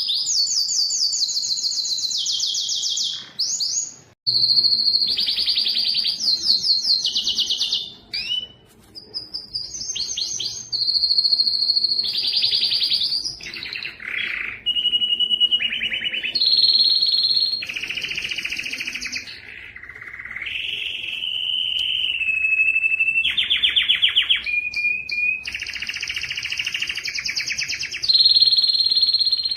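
Domestic canary singing a long, loud song. It moves from one fast trill of repeated notes to the next, with some held whistled notes, and pauses briefly twice in the first eight seconds or so.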